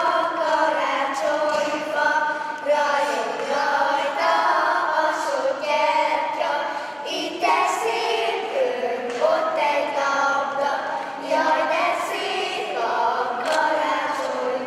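A group of children singing a song together as a small choir, without instrumental accompaniment.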